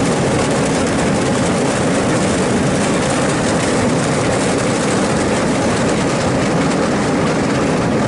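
Sugar beet piler running, with sugar beets tumbling through its receiving hopper onto the conveyors in a steady, loud clatter over the machine's rumble.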